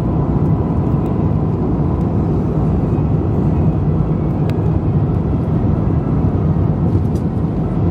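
Steady low rumble of an Airbus A350's cabin in descent on approach, the mix of airflow and engine noise heard from inside the cabin.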